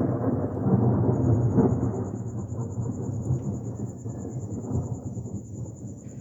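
Thunder rumbling during a rainstorm: a low rumble that swells over the first couple of seconds, then slowly fades away.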